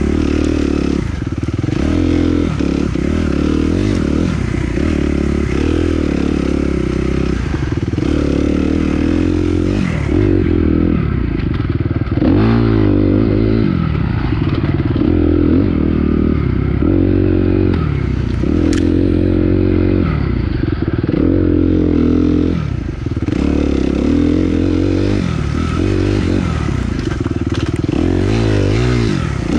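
Dirt bike engine racing, revving up and dropping back over and over as the rider works the throttle and gears, its pitch climbing and falling every second or two.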